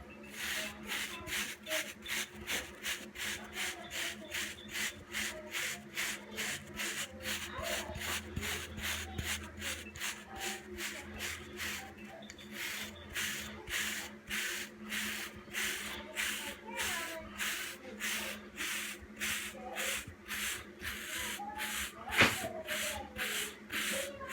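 Hair brush stroking over short hair, as in brushing 360 waves: a steady rhythm of brisk bristle strokes, about two a second. A single sharp knock comes a little before the end.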